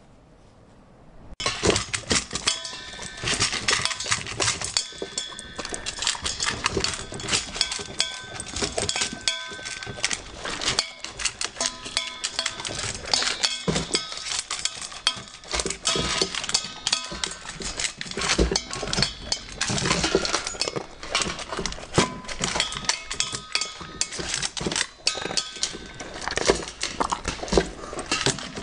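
Dog eating: a dense run of quick crunches and clicks, with short ringing tones mixed in, starting about a second and a half in.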